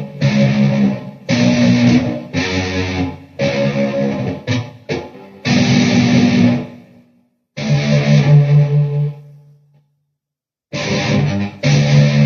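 Electric guitar played through a Peavey VYPYR X2 modeling amplifier: chords in short stabs that stop and start again. The playing breaks off for about a second and a half near the end, then resumes.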